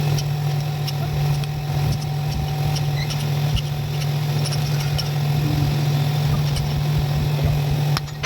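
A machine running steadily, with one constant low hum. It cuts off abruptly near the end, where rapid regular ticking begins.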